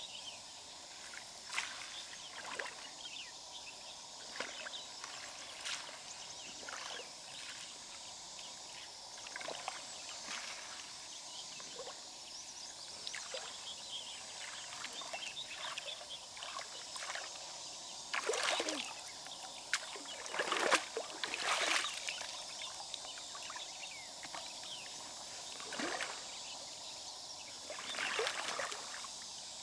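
Shallow river water sloshing and splashing now and then as mussels are gathered by hand, with scattered short knocks, over a steady outdoor hiss. The biggest splashes come about two-thirds of the way through and again near the end.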